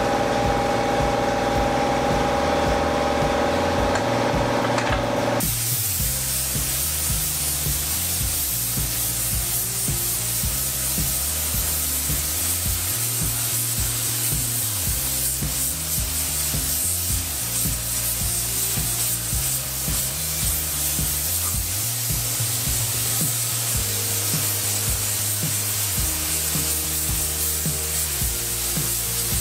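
Paint spray gun hissing steadily with compressed air as it coats an engine block. The hiss starts suddenly about five seconds in, over background music with a stepping bass line.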